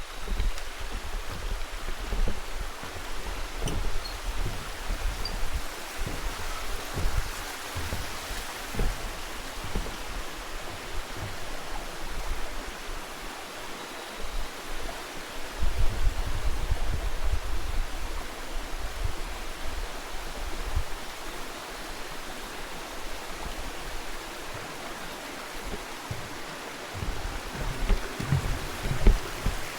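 Steady rush of a mountain stream and waterfall, with uneven low rumbles that swell about halfway through and again near the end.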